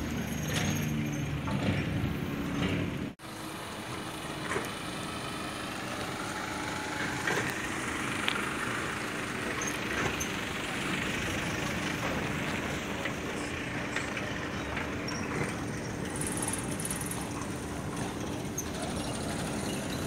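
Steady engine and motor-vehicle noise with a low hum, breaking off sharply for a moment about three seconds in.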